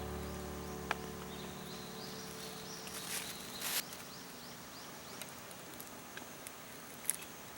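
A held chord from the background music fades out over the first few seconds. Then faint outdoor ambience remains, with a couple of light clicks and a short rustle about three seconds in.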